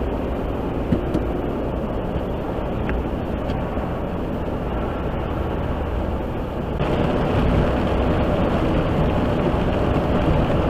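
A truck driving on a snow-covered highway: steady engine, tyre and road noise, growing a little louder from about seven seconds in.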